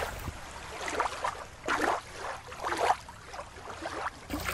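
Water sloshing and washing in several soft surges, each swelling and fading within about a second.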